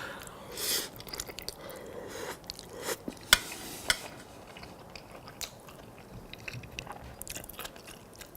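Close-up chewing of a mouthful of spaghetti with meat sauce: wet mouth noises and small clicks, with two sharp clicks about three and a half seconds in.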